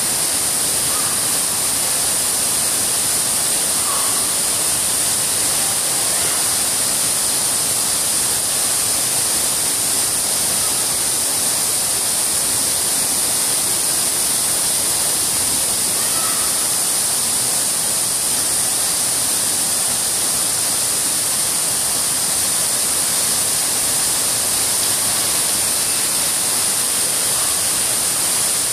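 Fountain jets and an artificial waterfall sheeting down a stone wall, giving a steady, even rush of splashing water.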